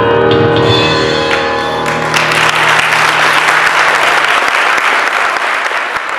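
A crowd applauding while music plays; the music stops about two seconds in and steady applause carries on, easing slightly toward the end.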